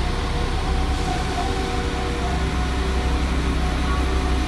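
Class 172 Turbostar diesel multiple unit, two units coupled, drawing slowly into the platform. A steady low diesel rumble runs throughout, with a faint steady whine over it.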